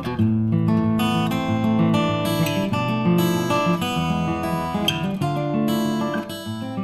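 Outro music: strummed acoustic guitar.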